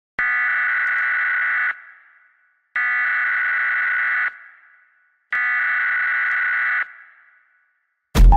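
Emergency-broadcast alarm tone sounding three times, each long blast lasting about a second and a half and fading out with an echo. A sudden loud hit comes right at the end.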